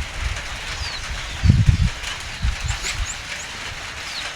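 Outdoor ambience with short, falling bird chirps heard several times over a steady hiss. A low rumble swells about a second and a half in, and a shorter one follows about a second later.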